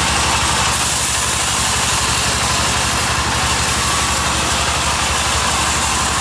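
Sawmill machinery running steadily: an engine-like rapid low throb under a constant hiss.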